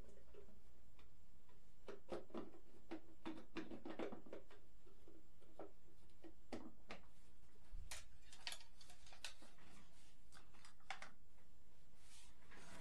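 Scattered light clicks, taps and brief rustles of hands handling small parts and tools on a workbench, with a faint steady hum underneath.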